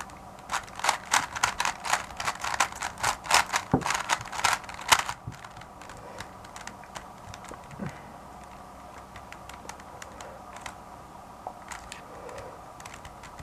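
A plastic 3x3 speedcube being turned by hand. Rapid clacking of layer turns runs for about five seconds, then only occasional single turns click.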